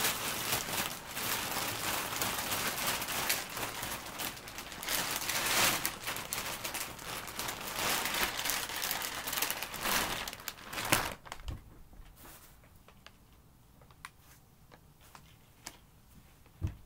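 Large clear plastic bag crinkling and rustling as a fursuit is pulled out of it, dying away about eleven seconds in; a few faint ticks follow, then a single thump near the end.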